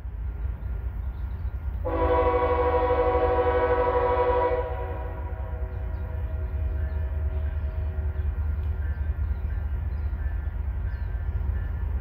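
An approaching freight train's diesel locomotive horn sounds one long multi-note chord, starting about two seconds in and lasting roughly two and a half seconds. Under it runs a low steady rumble.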